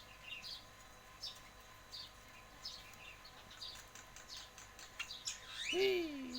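Pet lovebird chirping: many short, sharp chirps, with a louder, longer squawk that rises in pitch near the end.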